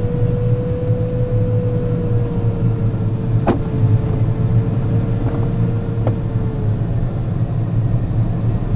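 Steady rush and rumble of airflow around the cockpit of an Alexander Schleicher AS33 18 m sailplane descending on landing approach. A steady mid-pitched tone slowly sinks in pitch and dies away about seven seconds in. Two sharp clicks sound, about three and a half and six seconds in.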